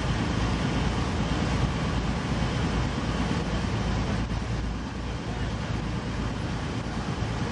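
Steady on-board noise of a moving river cruise boat: a low engine rumble mixed with wind and water, easing slightly about halfway through.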